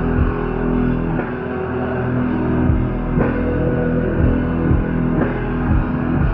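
Live punk rock band playing loud, with distorted electric guitars held over a full drum kit, as recorded from the crowd.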